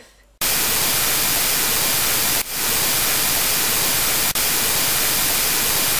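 Loud, steady static hiss like an untuned TV or radio, starting about half a second in, with two brief dips along the way.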